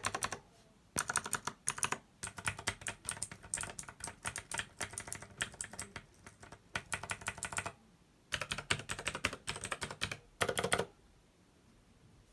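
Typing on a Razer BlackWidow Elite mechanical keyboard with clicky, tactile Razer Green switches: fast runs of sharp key clicks in bursts separated by short pauses. The typing stops near the end.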